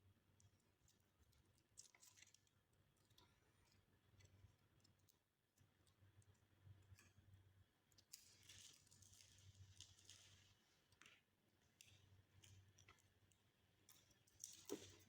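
Near silence with faint scattered clicks and soft rustling from the stripped Cat6 cable's twisted wire pairs being handled.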